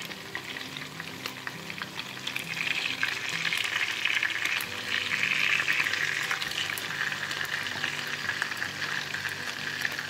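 Patties of minced beef liver and chicken sizzling in hot oil in a frying pan: a steady hiss with many small spitting crackles. It grows louder for a few seconds in the middle while a spatula turns the patties over.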